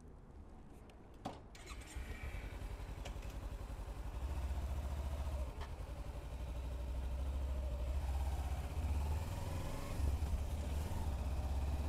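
Motorcycle engine running as the bike rides off, getting louder from about four seconds in as it picks up speed, with a single click about a second in.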